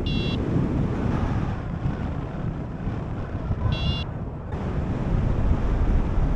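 Airflow rushing over the microphone in flight on a paraglider, with two short electronic beeps from a phone variometer app, one at the very start and one about four seconds in. Such vario beeps signal that the glider is climbing in lift.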